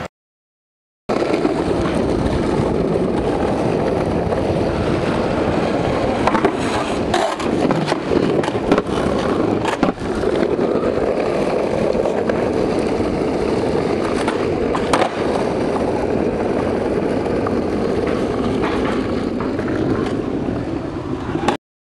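Skateboard wheels rolling steadily over pavement with a continuous rumble and a few sharp knocks along the way. It starts about a second in and cuts off suddenly near the end.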